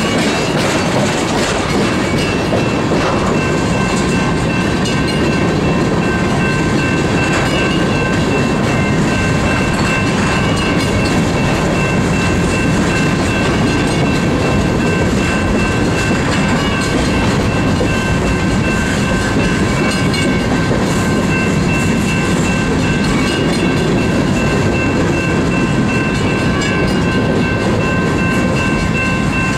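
Freight train cars rolling past close by: a steady, loud rumble of steel wheels on the rails with clickety-clack over the rail joints, and a few faint steady high tones over it.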